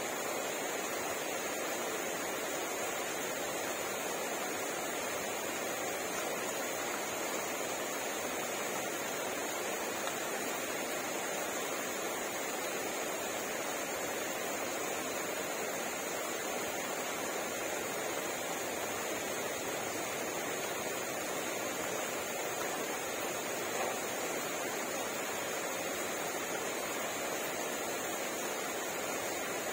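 Steady rain falling, an even hiss that holds level throughout with no thunder.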